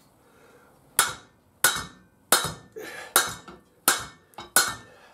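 Hammer blows knocking a stuck part off a barber chair's hydraulic pump: about six sharp strikes in a steady rhythm, roughly one every 0.7 s, each with a short ring.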